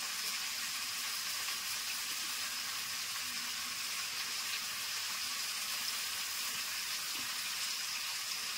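Soaked chickpeas frying in oil in a wok on a gas stove: a steady sizzling hiss.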